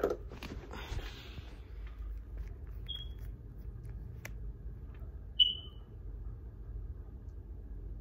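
Two short high-pitched beeps about two and a half seconds apart, the second louder, over a low steady hum; soft fabric rustle at the start as the phone rubs against clothing.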